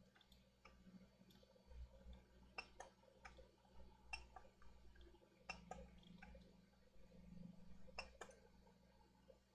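Faint, irregular clicks and light taps of small parts and tools being handled on a workbench, several close together in places.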